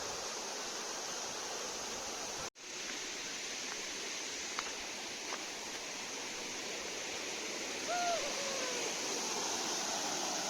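Steady rushing of water from a small waterfall, cut off for an instant about two and a half seconds in. A short falling call sounds over it near the end.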